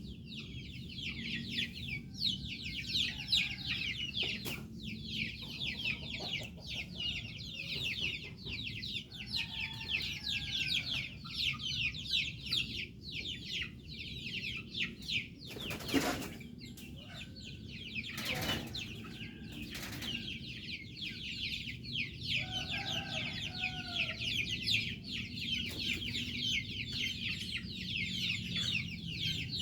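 A flock of chickens clucking over a constant dense high chirping, with a few sharp knocks in the middle.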